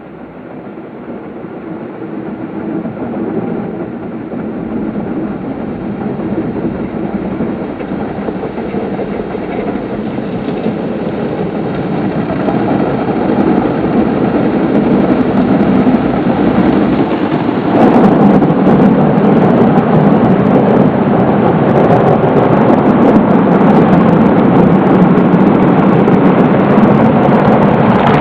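Automatic car wash machine running: a steady rushing mechanical and water noise that swells gradually over the first eighteen seconds or so as the machine comes closer, then stays loud. From then on it carries a dense crackle of small sharp hits.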